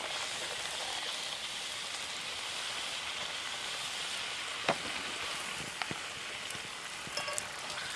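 Small puris deep-frying in hot oil, a steady sizzle with a few sharp clicks in the second half.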